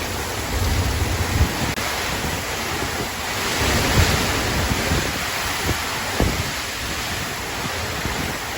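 Storm wind gusting hard with rain, a dense rushing noise that swells about four seconds in. Gusts buffet the microphone with short low thumps.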